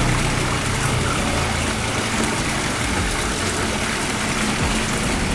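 Water running and splashing steadily into a garden fish pond, an even rushing hiss.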